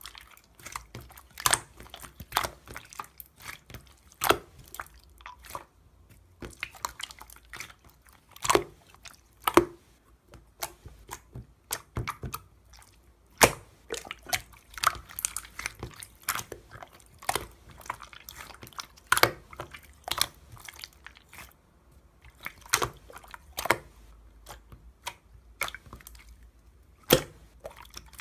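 Clear slime being squished and pressed by hand, making irregular sticky clicks and pops.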